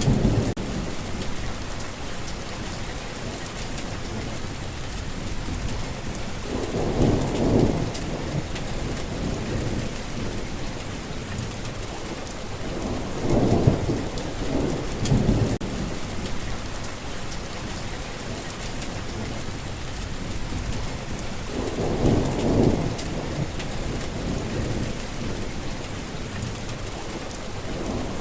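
Steady rain falling, with low rolls of thunder swelling and fading about four times.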